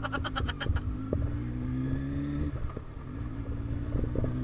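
Kawasaki Z1000R's inline-four engine breathing through an aftermarket Vmax muffler, pulling under throttle with its pitch slowly climbing; it dips briefly about two and a half seconds in, then climbs again.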